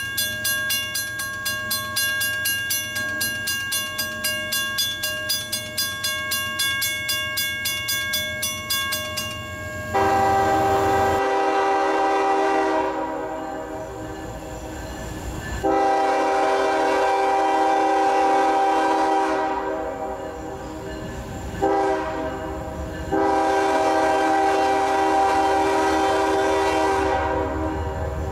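A railroad crossing bell rings steadily as the gate arm lowers, and stops about ten seconds in. Then an approaching CSX freight train's horn sounds the grade-crossing signal: two long blasts, a short one, and a final long one.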